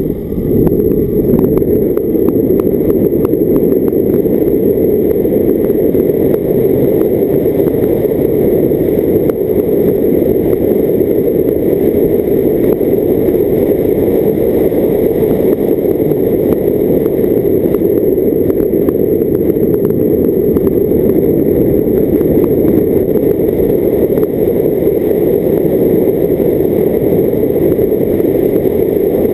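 Steady, loud wind buffeting and road noise from a car driving along a lane at speed, picked up by a camera mounted outside over the bonnet, with the car's running noise blended underneath.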